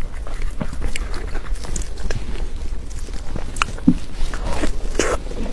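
Close-miked chewing and mouth sounds of someone eating cake, a run of irregular small clicks and soft wet noises over a low steady hum.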